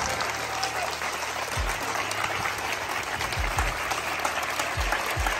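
A crowd applauding steadily, with a few short low thumps underneath.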